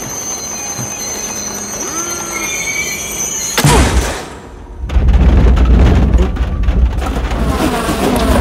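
Subway train sound effects: a train standing at the platform with a steady high whine, a sudden loud burst about three and a half seconds in, then from about five seconds a loud low rumble as the train moves.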